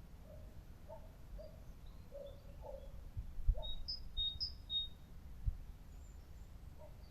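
Park ambience: small birds chirping, with short high chirps clustered about four seconds in and lower calls repeating through the first half, over a steady low background rumble. Two brief low thumps stand out, about three and a half and five and a half seconds in.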